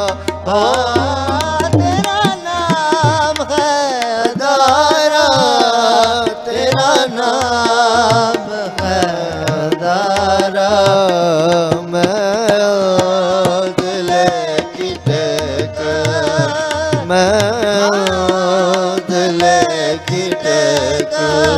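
Sikh shabad kirtan: a man sings a long, wavering, ornamented melodic line over harmonium and tabla. The tabla strokes keep a steady rhythm.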